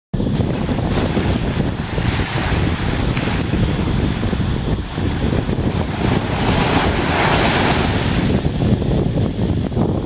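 Small sea waves breaking and washing up the sand at the water's edge, with a louder wash swelling up about six seconds in. Wind buffets the microphone with a low rumble.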